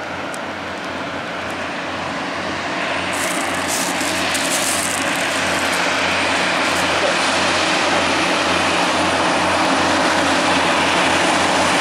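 Diesel engines of heavy-haulage prime movers pulling over-100-tonne excavator loads on multi-row floats, working hard as the convoy approaches: a steady low engine drone that grows steadily louder.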